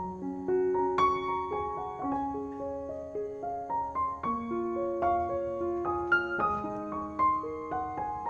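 Background piano music: a gentle, slow melody of single held notes over soft chords.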